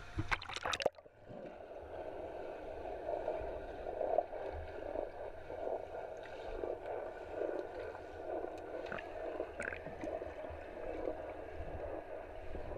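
Water splashing at the surface, then about a second in the sound goes muffled as the microphone goes under. Steady dull underwater pool noise follows, with a few faint clicks.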